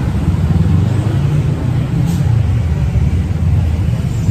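Busy street traffic: buses, cars and motorbikes running past, a steady low rumble.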